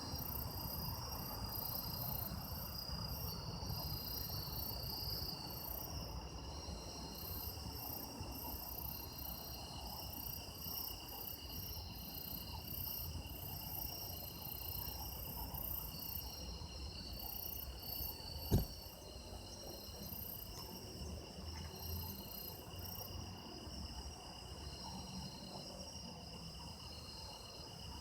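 A chorus of autumn insects (crickets and other singing insects) calling together: a steady mid-pitched trill, a chirp that repeats every second or so, and a very high pulsed buzz. A single sharp click about two-thirds of the way through.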